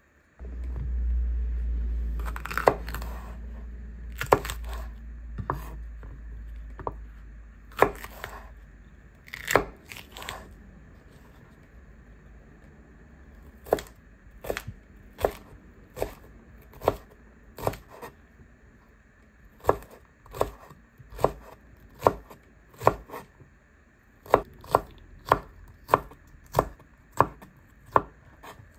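Chef's knife cutting capsicum and jalapeño on a bamboo cutting board: sharp knocks of the blade hitting the wood, scattered at first, then a steady run of more than one cut a second through the second half. A low rumble sits under the first few seconds.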